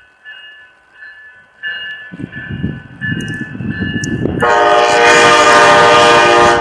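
Railroad grade-crossing bell dinging steadily as a train approaches with a rising rumble. About four and a half seconds in, the locomotive's air horn sounds a loud, long blast that ends near the end.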